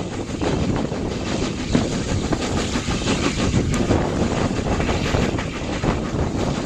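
Heritage train coaches running along the track, heard from an open carriage window: a steady rush of running noise with the wheels clattering on the rails.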